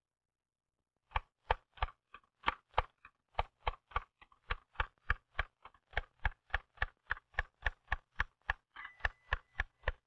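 Manual typewriter keys struck one at a time in an even rhythm. The keystrokes start about a second in at about three a second and gradually quicken to about five a second.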